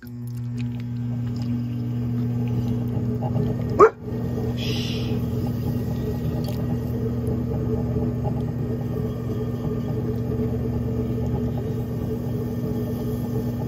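Electric pottery wheel's motor switching on and running with a steady hum. About four seconds in, a brief loud squeak rises in pitch.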